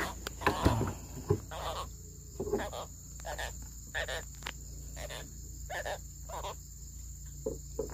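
Insects chirring steadily at a high pitch. Over them comes a string of short, irregular smacks close by, two or three a second.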